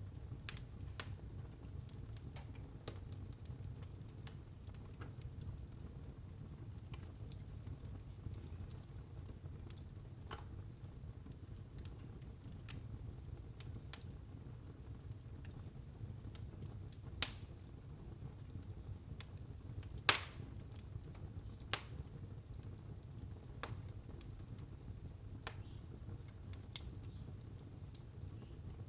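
Wood fire burning in a fireplace: a steady low rumble of flames with scattered sharp crackles and pops, the loudest about two-thirds of the way through.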